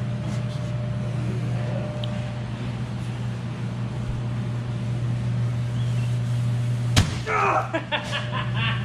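A steady low machine hum, with a single sharp knock about seven seconds in followed briefly by a voice.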